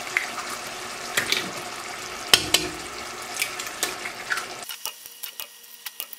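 A pot of cooked-down chicken broth sizzling steadily, with a series of sharp cracks as eggs are broken on the pot and dropped in. About four and a half seconds in the steady sizzle cuts out suddenly, leaving scattered faint crackles.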